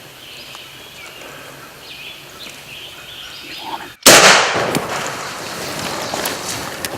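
A single shotgun blast about four seconds in, sudden and very loud, its echo dying away over the following second.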